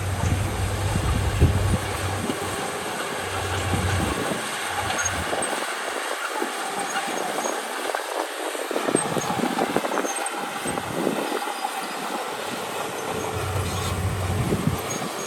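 Crawler bulldozer at work: its diesel engine running, with a low hum that drops away in the middle and returns near the end, under steady clanking and rattling of the steel tracks.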